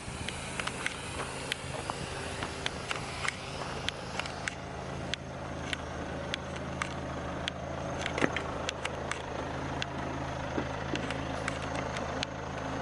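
A car engine idling steadily, with scattered irregular clicks and ticks over it.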